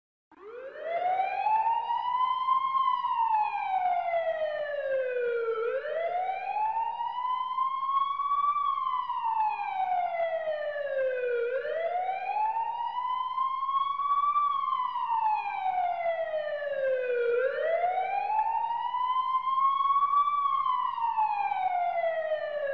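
Emergency siren wailing in a slow rise and fall: each cycle climbs for about two and a half seconds and slides back down over about three, four cycles in all.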